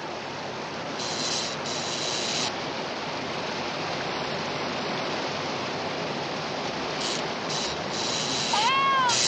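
Floodwater rushing steadily down a concrete channel, with spells of hissing, crackling sparks from live electrical wires about a second in and again in the last couple of seconds. Near the end a woman gives one short cry that rises and then falls in pitch.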